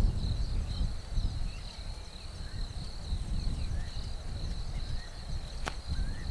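Bush ambience: a steady high insect drone, with scattered short high chirps over a low rumble. There is one sharp click near the end.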